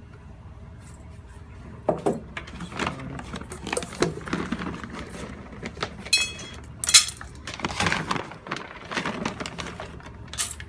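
Dry dog food (kibble) rattling and clinking in feeding bowls as the dogs are fed. It starts about two seconds in as a run of irregular clicks and knocks, with a brief ringing clink of a bowl about six seconds in.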